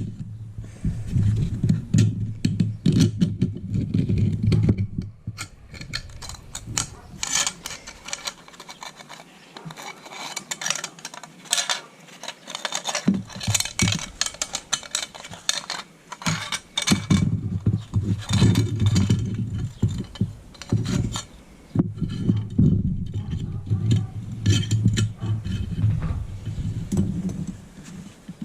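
Irregular metallic clinking and rattling as the coiled steel recoil spring from a pull starter is handled and unwound.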